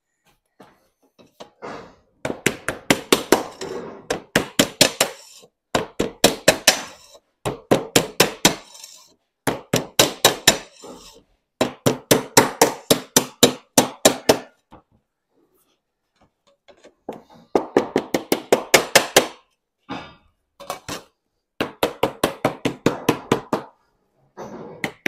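A lead dresser beating a sheet of lead flat on a workbench, in runs of quick flat blows, about six a second, broken by short pauses. The blows stop for a couple of seconds around the middle.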